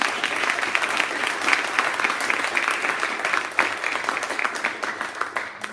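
A small audience applauding at the close of a talk, with dense, even clapping.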